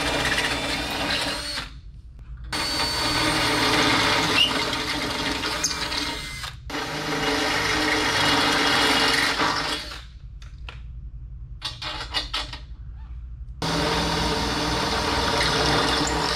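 Cordless drill boring holes through the metal side frame of a solar panel, in four steady runs of a few seconds each with short pauses between them. A few brief blips fall in the longer pause about ten seconds in.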